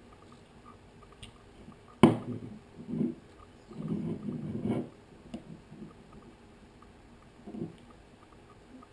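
Leatherman Surge multitool being handled and worked: a sharp metal click about two seconds in, a thump a second later, then a second or so of rubbing and fiddling, and one more small knock near the end.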